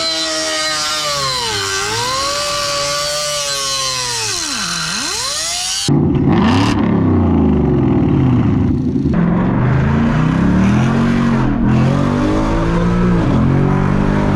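Car engine revving: a high pitch that swoops down twice, then after a sudden cut about six seconds in, a deeper engine sound revved up and down over and over.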